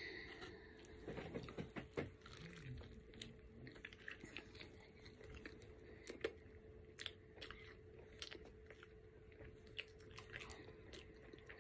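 Close-up mouth sounds of a person chewing a bite of an everything bagel sandwich with egg, cheese and chorizo: faint, irregular small clicks and smacks. A low steady hum sits underneath.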